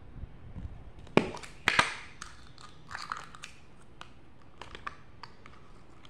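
Plastic modelling-dough tubs and lids handled on a table: a sharp click about a second in, a louder crinkly scrape just after, then scattered light clicks and taps.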